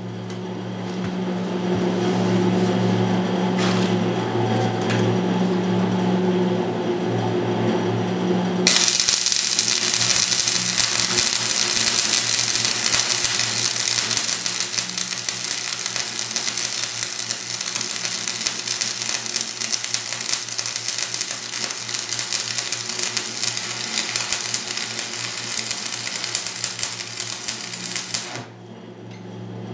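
Stick (rod) arc welding of a steel joint: the arc is struck about a third of the way in and gives a steady loud crackle and hiss that cuts off shortly before the end. Before the arc is struck there is a steady low buzzing hum.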